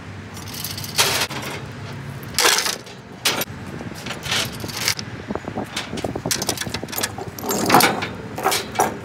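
Tie-down chains rattling and clanking in a series of irregular sharp metal jingles and knocks as a skid steer is chained down on a flatbed trailer.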